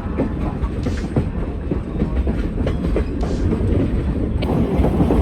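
Passenger train rolling along the track, a steady low rumble with the occasional clack of wheels over the rails.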